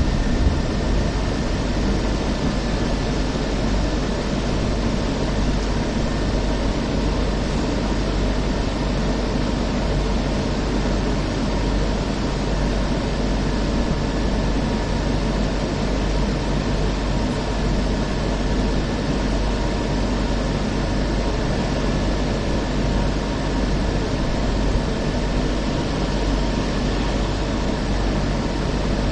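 Steady cabin noise inside a Hong Kong Peak Tram funicular car: a low hum under an even hiss, with faint steady whines and no distinct events.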